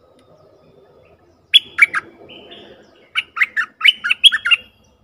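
Bulbul (merbah) calling: a quick cluster of three short, loud whistled notes falling in pitch, then a run of about seven more. This is a decoy call used to lure wild bulbuls.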